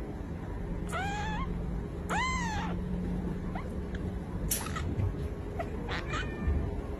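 Young kittens mewing: four short, high-pitched mews, the first rising in pitch and the second arching up and then down.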